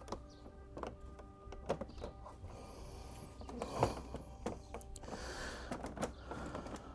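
Plastic fairing panels being handled and pressed into place: scattered light clicks and knocks with two brief scraping rustles.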